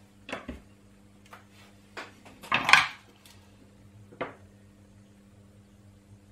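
Small metal tin of solder flux paste being closed and set down on the workbench: a few light clicks, then a louder metallic clatter about two and a half seconds in, and one more tap a little after four seconds.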